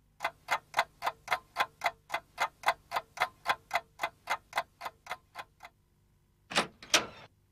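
Wall clock ticking as a cartoon sound effect: about twenty sharp ticks at about four a second, fading away, then near the end two short louder sounds, the second the loudest.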